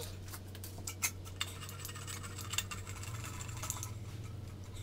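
Scattered light clicks and metallic taps from handling a metal air pipe with a rubber coupling and hose clamp as it is fitted to a metal forge stand, over a steady low hum that stops near the end.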